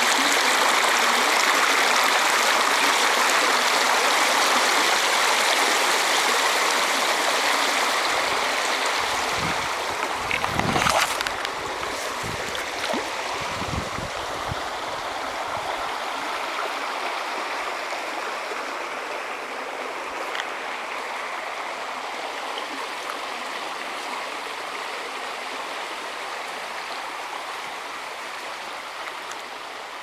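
Shallow stream rushing and splashing over rocks, a steady watery rush that slowly fades after about eight seconds. A few low thumps come between about ten and fifteen seconds in.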